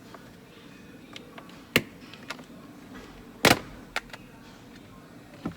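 Plastic steering column trim cover being pried loose with a flat screwdriver, its clips snapping free: a sharp snap a little under two seconds in, a louder crack about halfway, and a few lighter clicks.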